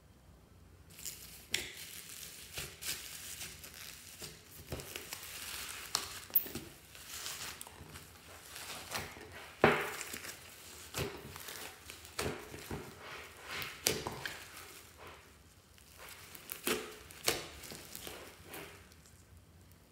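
Slime loaded with foam beads being squeezed and kneaded by hand in a glass bowl: irregular crackling and crunching pops that start about a second in, with the loudest pop about ten seconds in.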